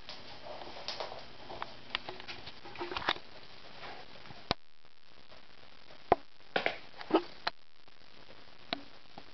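Bengal cat scuffling and pouncing on a laminate floor with its toys: scattered scrapes and light clicks of paws and a toy mouse against the boards over the first three seconds, then a few sharp knocks as it dashes and lands in the second half.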